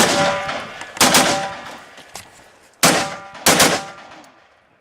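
Four rifle shots fired at an uneven pace, the first two about a second apart and the last two close together near the end. After each shot comes a short metallic ring, like a struck steel target.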